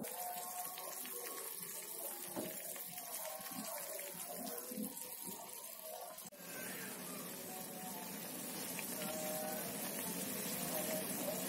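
Wet ground chili paste sizzling and bubbling in a frying pan as it is stirred with a spatula, its water cooking off, a steady hiss.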